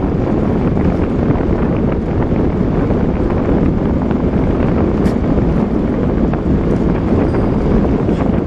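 Loud, steady wind buffeting on the microphone of a handlebar-mounted camera on a bicycle speeding downhill.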